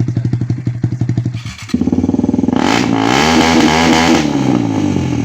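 Single-cylinder motorcycle engine running with its silencer removed: it idles with loud, open exhaust pulses, then revs up about two seconds in and drops back toward idle near the end.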